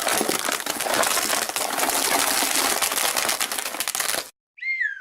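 A wrapper crinkling and crackling densely for about four seconds, stopping abruptly. Then, near the end, a whistle-like tone slides steadily down in pitch.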